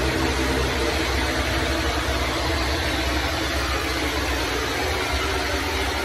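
Pressure washer wand spraying water onto a hard flat surface: a steady hiss of the jet over the low, steady hum of the washer's engine.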